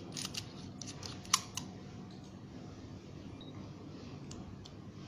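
Small sharp clicks and taps of stainless steel and glass tank parts being handled and fitted together: a cluster of clicks in the first second and a half, the loudest about a second and a half in, then two faint ticks near the end.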